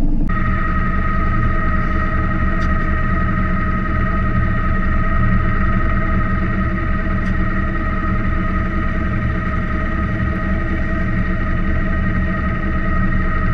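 Small two-cylinder marine diesel engine (Yanmar 2QM15G) running steadily with a low pulsing throb. A steady high whine sits over it, beginning a moment in.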